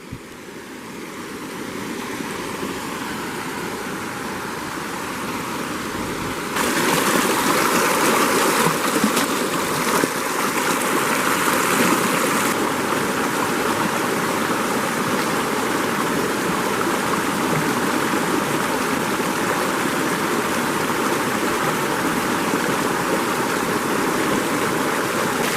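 Mountain stream running steadily, a continuous rush of water that grows louder over the first couple of seconds and steps louder again about six seconds in.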